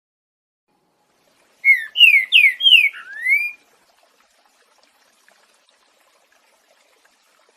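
Green-winged saltator (trinca-ferro) singing one loud whistled phrase of the 'boiadeiro' song type: four quick down-slurred whistles followed by a rising one, about two seconds long, starting a second and a half in.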